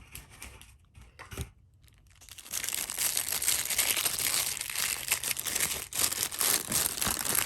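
Knife packaging being rummaged through and crinkled by hand: a few light rustles and clicks, then steady crinkling from about two and a half seconds in as the knife is pulled out of its wrapping.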